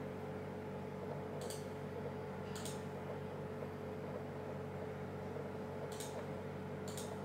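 Four faint mouse clicks, spread out, over a steady hum with a held tone from the running desktop computer.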